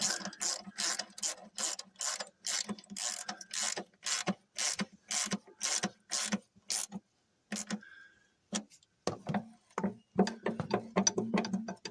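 Hand ratchet wrench clicking as it is worked back and forth to tighten a bolt, a steady run of sharp clicks about three a second, then after a short pause a quicker run of short strokes near the end.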